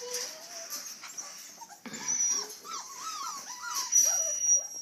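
Border collie puppies whining, a string of short high whimpers rising and falling in pitch, most of them in the second half.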